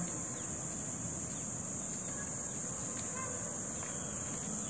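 A steady, high-pitched, continuous drone of an insect chorus.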